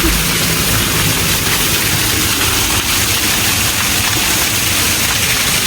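Steady rushing noise of flowing water, a stream or cascade close to the microphone.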